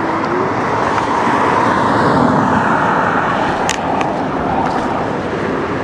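Steady rushing road and wind noise while riding an Apollo Go electric scooter on asphalt, with one brief sharp click about three and a half seconds in.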